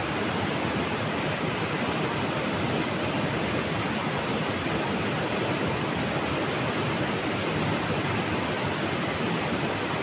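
River water rushing steadily over rocks in a shallow, rocky stream.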